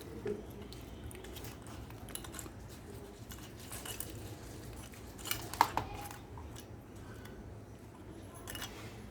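Small clicks and clatter of parts being handled and taken off a panel assembly, with one sharper click a little past halfway, over a steady low hum.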